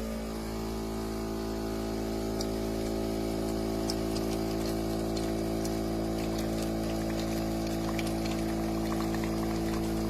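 The Philips 3300 espresso machine's pump hums steadily while brewing, with faint light ticks above the hum.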